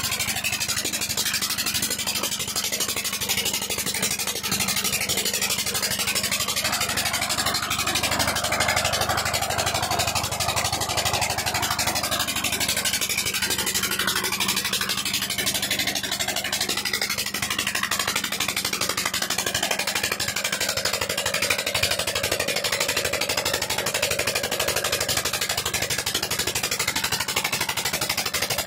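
Single-cylinder stationary diesel engine (a local "Peter" engine) running steadily under load, driving a well water pump by a flat belt, with an even, rapid beat.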